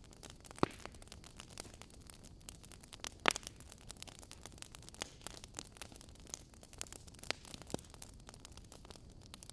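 Wood logs burning in a fireplace, crackling with frequent irregular sharp pops over a faint steady hiss; the loudest pop comes a little over three seconds in.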